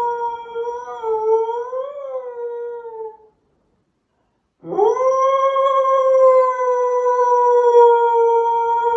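A dog howling: one long, held howl that wavers in pitch about a second in and fades out around three seconds, then after a gap of silence a second howl that swoops up in pitch and is held steady.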